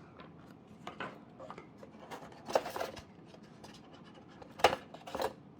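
Small objects and packaging being handled: scattered light scrapes and clicks, with a sharper click about four and a half seconds in.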